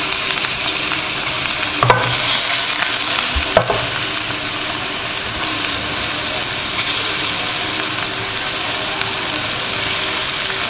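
Minced-meat kebabs sizzling steadily as they fry in a little oil or ghee in a hot non-stick frying pan. Two light knocks come about two and three and a half seconds in.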